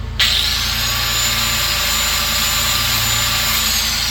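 Angle grinder fitted with a flap disc switching on with a sudden high whine and running steadily at speed, then switched off and winding down in pitch near the end. It is being used to take metal off the heavy end of a mower blade to balance it.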